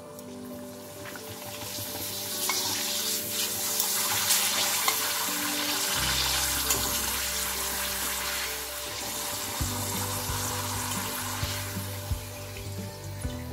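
A rice appalam (papad) sizzling and bubbling in hot oil in a steel frying pan; the sizzle swells over the first few seconds and eases off toward the end as the puffed appalam is lifted out of the oil. Soft background music plays underneath.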